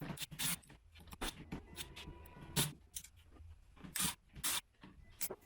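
Scattered sharp clicks and scrapes of Phillips screws being taken out of a Sony SA-CT60 soundbar's plastic housing and the parts being handled.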